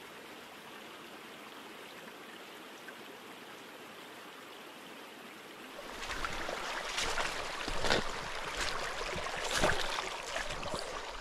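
A small creek's water running steadily over its stones. About six seconds in the sound turns louder and rougher, with irregular knocks through it.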